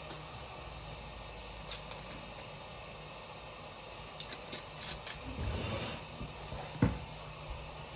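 Small tools being handled at a repair bench: a few light clicks, a stretch of scraping or rustling, then a sharp thump near the end, over a steady hiss.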